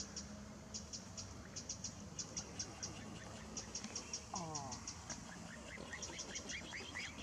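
Faint high chirping ticks in quick irregular runs, insect-like, with a short falling call about four seconds in and a run of rising chirps near the end.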